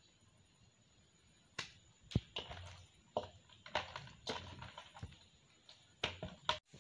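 Soft, oil-slicked maida dough being squeezed and pinched apart by hand in a bowl: irregular wet squishes and light clicks, beginning about a second and a half in.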